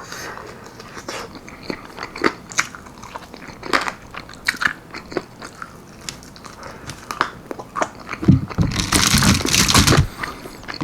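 Person eating baked almond-flour-battered chicken wings: scattered short clicks of biting and chewing, with a longer, louder stretch of eating noise about eight to ten seconds in.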